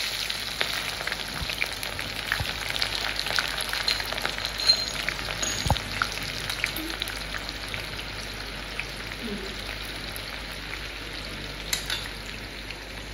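Freshly added sliced onions deep-frying in hot oil, a steady sizzle dotted with small crackling pops that slowly grows quieter.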